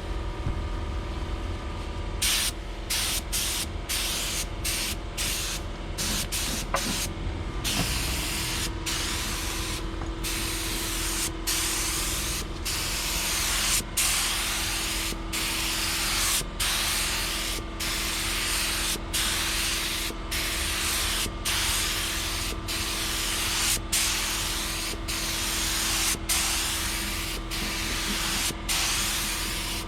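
Air-powered spray gun hissing as paint is sprayed. It comes in a few short bursts at first, then in regular passes about every second and a quarter, each cut by a brief gap. A faint steady hum runs underneath.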